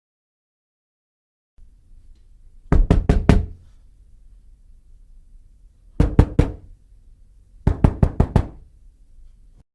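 Knocking on a door: three rounds of quick knocks, the first of about four, the second of three, the last of about six.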